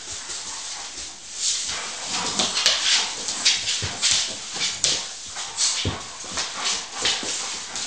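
Two dogs play-fighting: whining and play-growling, with scuffling on a wooden floor and a few thumps.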